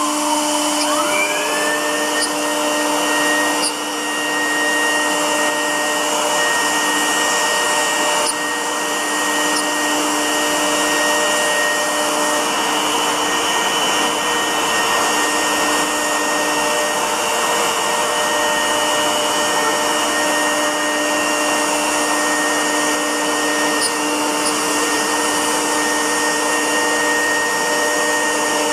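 CNC router spindle running at high speed and cutting MDF: a steady high whine over a dense rushing noise. About a second in, the whine dips in pitch and climbs back.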